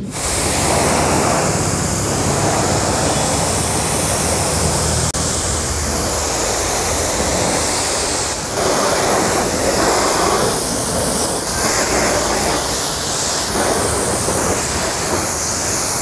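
High-pressure water jet from a STARQ QT-30 commercial pressure washer spraying over a car's bodywork: a loud, steady hiss of spray that dips briefly about halfway through as the jet moves across the panels, with a low hum from the running pump underneath.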